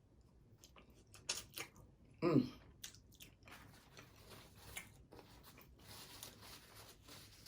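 Close-miked eating of homemade cheesy french fries: biting and chewing with wet mouth clicks and smacks. A short voiced sound falling in pitch comes about two seconds in.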